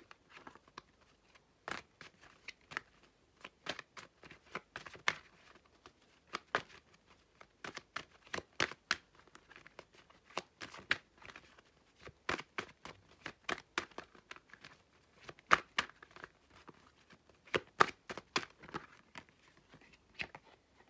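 A deck of oracle cards being shuffled and handled by hand: an irregular run of dry clicks and slaps of card on card.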